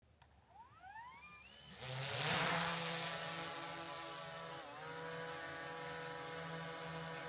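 DJI drone's motors and propellers spinning up with a rising whine, a loud rush of air about two seconds in, then a steady multi-tone whine that dips briefly in pitch past the middle and recovers.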